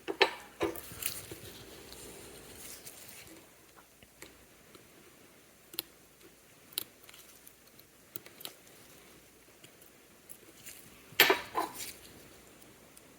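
Small metal watchmaker's tools clicking and tapping against a mechanical watch movement while its bridge is being removed: scattered light clicks, a few at the start, single ticks in the middle, and the loudest cluster near the end.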